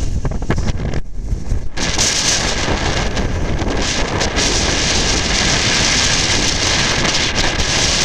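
Blizzard wind buffeting the microphone with a rough low rumble. A stronger gust about two seconds in adds a loud, steady hiss of wind-driven snow.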